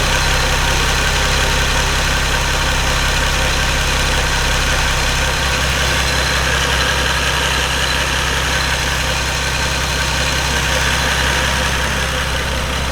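Toyota 2JZ straight-six engine idling steadily.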